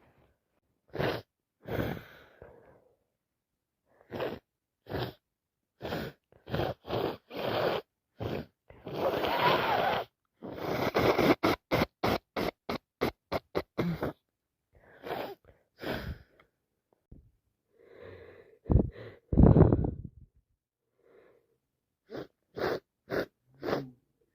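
A woman with a head cold sneezing over and over, with sharp gasping breaths between the sneezes. In the middle comes a quick run of short bursts, about four a second.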